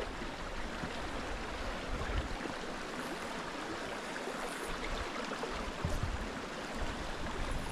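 Water of a small creek running steadily over its bed, with a few brief low bumps about two, six and seven seconds in.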